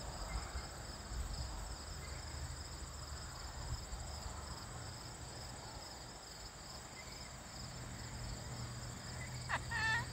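Crickets chirping steadily in a high, finely pulsing trill over a low outdoor rumble.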